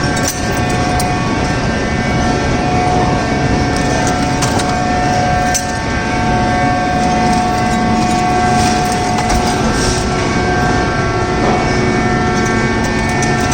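Scrap-metal baler running: a loud, steady mechanical drone with a constant whine over it and a few sharp clicks.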